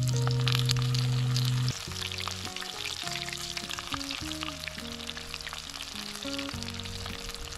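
Breaded chicken legs crackling and sizzling as they fry in hot oil, under background music whose loud low note stops about two seconds in.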